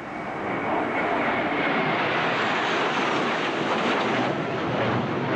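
Su-24 strike jet's twin turbojets passing low and close, a dense jet noise that swells within the first second and then holds steady and loud.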